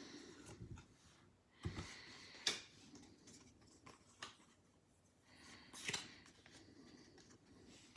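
Faint handling of a stack of Pokémon trading cards: cards sliding and scraping over one another, with a few soft clicks as they are flicked and squared up, twice growing a little louder, about two seconds in and again near six seconds.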